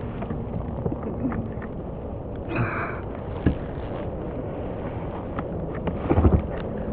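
A kayak under way, with steady wind and water noise. Small knocks on the hull are scattered through it, with a short high-pitched sound about two and a half seconds in and a cluster of heavy thumps about six seconds in.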